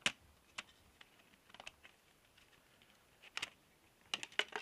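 Thin white PVC air vent cover being flexed and handled: a string of sharp plastic clicks and snaps, ending in a quick cluster of clicks.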